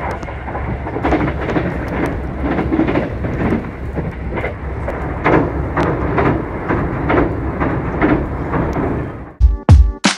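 Train running along the track, heard from inside the carriage: a steady low rumble with swells of rattling noise about every half second. About nine and a half seconds in, music with heavy drum hits cuts in.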